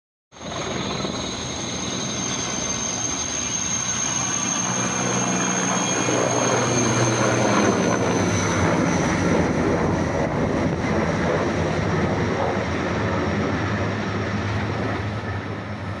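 Erickson S-64 Air-Crane firefighting helicopter flying past, its turbines giving a steady high whine that sinks slightly in pitch about halfway through, over a low rotor drone.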